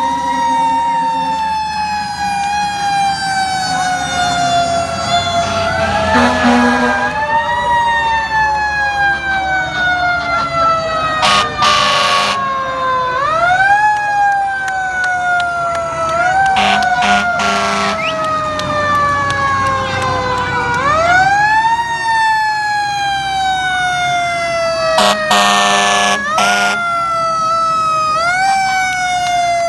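Several fire engine sirens sounding together, each rising quickly in pitch then falling slowly over several seconds, over and over. Short loud horn blasts break in four or five times.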